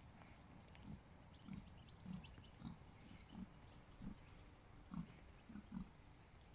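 Pigs grunting: a string of short, low grunts, about one every half second to a second. Faint bird chirps sound higher up.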